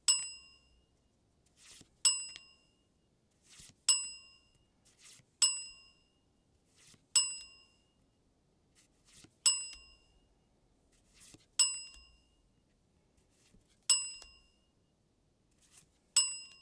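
A bright, ringing ding sound effect, nine identical strikes about two seconds apart, each marking a trading card being revealed. Before each ding comes a soft, short rustle of the card being slid off the stack.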